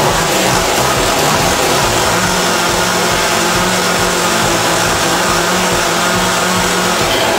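Small gasoline two-stroke chainsaw running and cutting through a wooden board.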